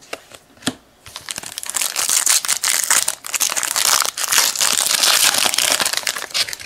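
Foil trading-card pack wrapper crinkling and crumpling in the hands, a couple of light clicks, then about five seconds of dense, continuous crackling.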